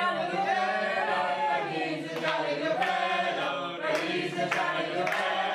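A group of people singing together in unison, the many voices held on long notes.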